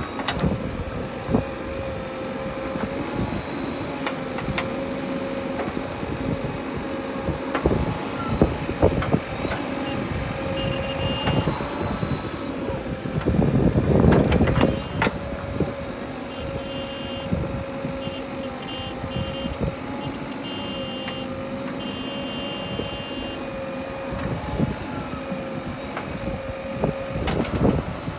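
JCB 3DX backhoe loader's diesel engine running steadily while its bucket digs and dumps earth, with clunks and scrapes of soil and stones and a louder rush of dumped earth about 14 seconds in. Short runs of high beeps sound around 11 seconds in and again over several seconds in the second half.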